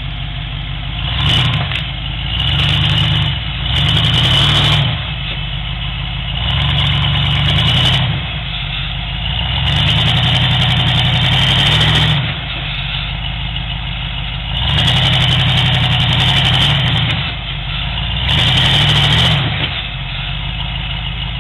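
Rock buggy's engine idling, revved again and again in short bursts of throttle, about seven, each lasting a second or two, as the buggy crawls up a steep rock ledge.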